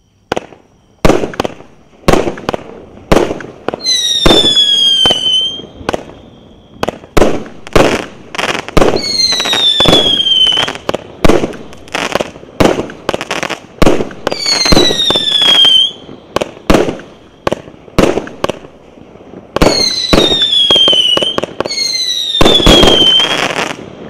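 A 25-shot consumer fireworks cake firing in rapid succession: sharp launch pops and bursts one after another, and five times a whistle that falls in pitch over a second or two.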